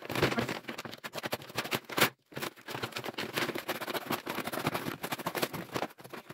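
Brown paper and cardboard packaging crinkling and tearing as a parcel is cut and pulled open by hand: dense, irregular crackling, with one louder burst about two seconds in.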